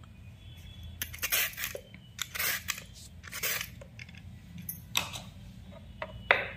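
Handheld vegetable peeler scraped down a raw carrot in several short strokes, coming in irregular bunches.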